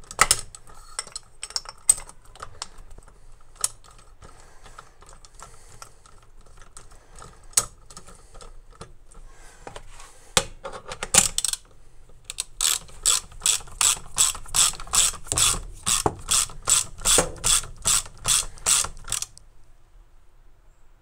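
Hand ratchet wrench clicking in an even rhythm of about three to four clicks a second for several seconds in the second half. Before it come scattered light metallic clicks and knocks of steel tools being handled on a valve spring compressor.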